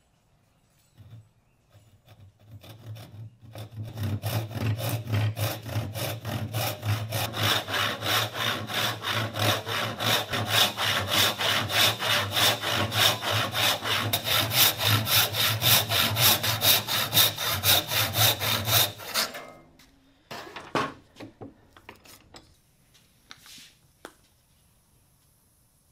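A large western hand saw cutting through a wooden block held in a bench vise, starting with a few light strokes and then going on with steady, rapid back-and-forth strokes. The sawing stops abruptly about three-quarters of the way through, followed by a few light knocks.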